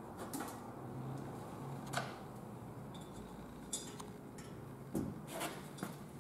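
Light metallic clicks and clinks from steel ladder tree-stand tube sections and hardware being handled and fitted together, a handful of separate short knocks.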